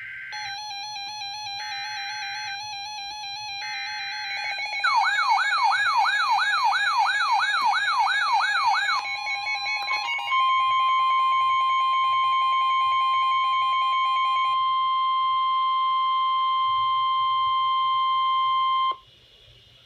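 NOAA Weather Radio emergency alert: three short bursts of digital header data, then a loud, steady 1050 Hz warning tone that lasts about nine seconds and cuts off abruptly. Under and between them run other electronic alarm tones, including a siren-like tone sweeping rapidly up and down for about four seconds.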